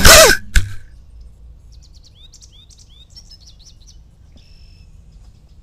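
The quadcopter's DYS SE2205 brushless motors wind down, their whine falling quickly in pitch, and end in a thump as it settles into the grass. Then several small birds chirp with short, falling calls.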